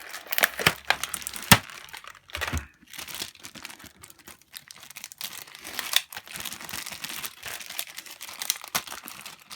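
Toy packaging being pulled open and handled: crinkling and rustling with scattered irregular clicks, and one sharp crack about a second and a half in.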